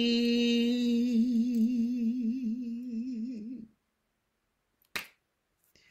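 A woman's solo singing voice holds the last note of the song on "day". The note is steady at first, then takes on a widening vibrato and fades out about three and a half seconds in. Silence follows, broken by a brief click about five seconds in.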